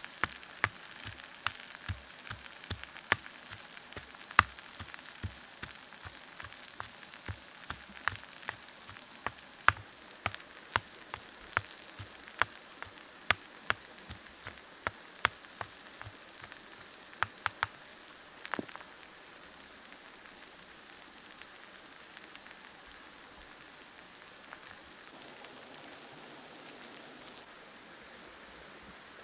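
Small wood cooking fire crackling, with sharp irregular pops over a low hiss. The pops stop about two-thirds of the way through, leaving only a steady faint hiss.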